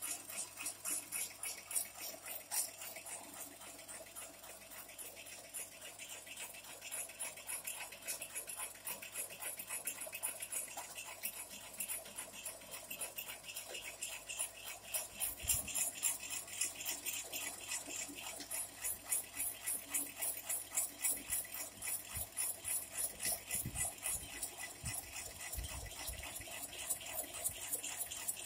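Electric jackfruit slicer running with a steady motor hum and a quick, regular ticking of its blades as jackfruit bulbs are fed in and sliced. There are a few dull knocks in the second half.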